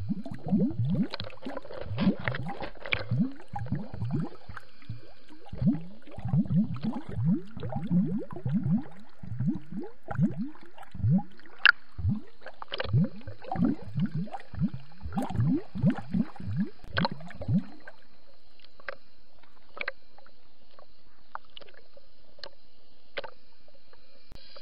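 Underwater gurgling and squishing of water moving around a submerged camera, heard through its housing: a busy run of short low sounds, each dropping in pitch, that thins to a few scattered clicks about eighteen seconds in.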